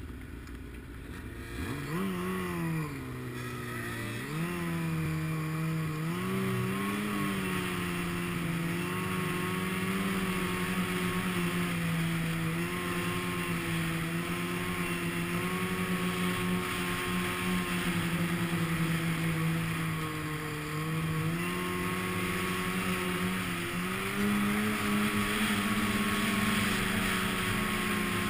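Snowmobile engine under way, its pitch rising and dipping several times in the first seven seconds, then running at a steady speed, with a step up in pitch about 24 seconds in, over a steady hiss.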